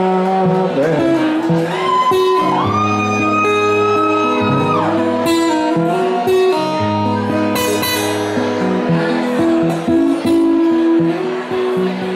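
Live acoustic guitar strummed in a song, with a man's voice singing a long held line over the first half.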